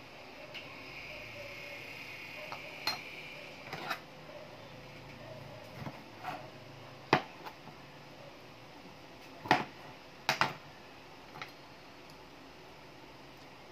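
Scattered sharp clinks and knocks of kitchen utensils and dishes being handled on a table, about nine in all, the loudest about seven seconds in and a quick pair near ten seconds.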